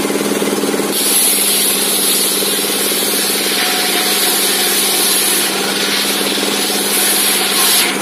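Circular saw blade on a homemade saw table ripping a timber board lengthwise, a rasping cut from about a second in that stops abruptly just before the end as the board comes off the blade. The saw's drive hums steadily throughout.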